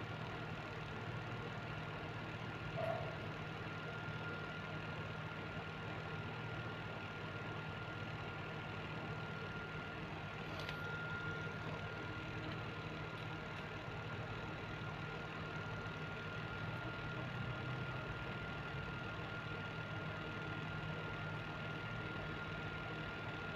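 Steady low mechanical hum with a thin, constant high whine over it, like a motor running in the room; a brief faint chirp about three seconds in and a faint click near the middle.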